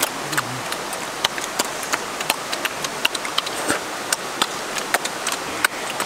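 Close-up chewing and lip-smacking on cooked chicken: many irregular wet clicks over a steady hiss.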